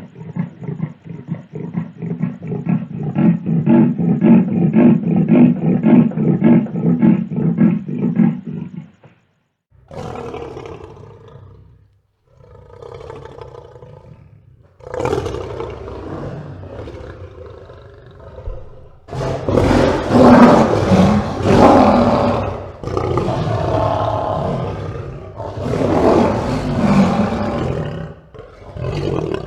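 Big cats roaring and growling: first a fast, pulsing low growl for about nine seconds, then a series of separate roars with short pauses between them, the loudest a little past the middle.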